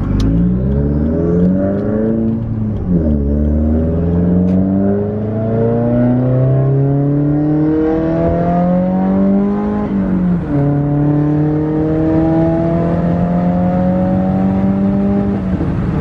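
2017 Subaru WRX's turbocharged flat-four, with a catless J-pipe and Tomei titanium exhaust, heard from inside the cabin while accelerating through the gears. Revs climb, drop at an upshift about three seconds in, and climb again for several seconds. They drop at a second upshift about ten seconds in, then hold nearly steady, creeping up slowly.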